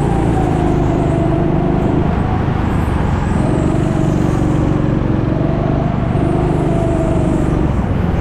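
Go-kart engine running hard, heard on board: its note climbs and holds, breaks off briefly about two seconds in and again about five seconds in, then climbs again, over a constant low rumble.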